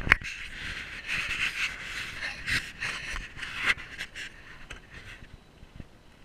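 Footsteps crunching in snow, about two steps a second, fading out about two-thirds of the way through.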